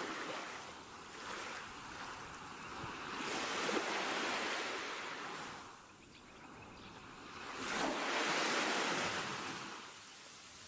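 Waves washing in, a hushing rush of noise that swells and fades twice, around four and eight seconds in.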